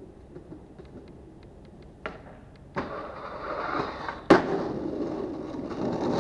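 Skateboard wheels rolling on pavement, with a loud smack about four seconds in as the board lands a jump down a long stair set, then rolling on. A few faint ticks and a knock come before the roll starts.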